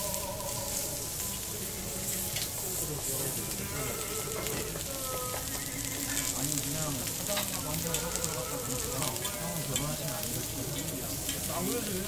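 Raw lamb sizzling on a hot jingisukan dome grill, a steady frying hiss.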